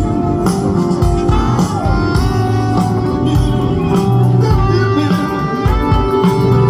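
Band music with guitar, bass and a steady drum beat.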